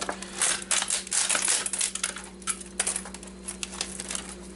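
Plastic parts of an HP wireless keyboard clicking and rattling as its silver Mylar membrane is pulled out, with crinkling and a run of irregular small clicks.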